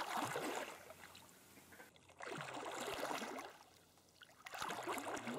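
Swimming-pool water sloshing as waves up to 10 cm high are stirred up, in three surges about two seconds apart.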